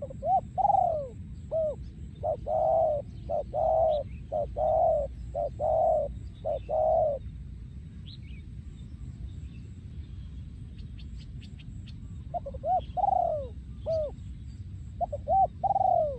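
Male spotted dove cooing: a phrase of rounded coo notes, a pause of about five seconds, then a second phrase near the end. Faint chirps of small birds sound higher up.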